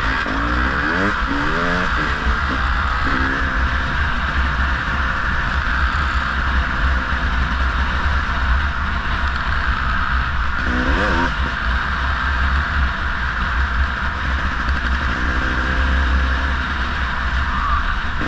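Dirt bike engine running under way, heard from the bike itself, rising in pitch several times as the rider accelerates and easing off in between, over a steady rumble and rush of riding noise.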